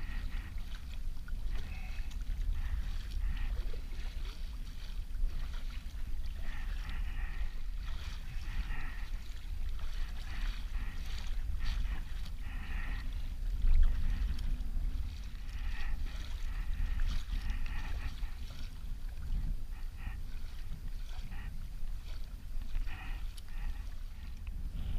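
Kayak paddle strokes splashing in the water, with water lapping along the hull, over a steady low rumble.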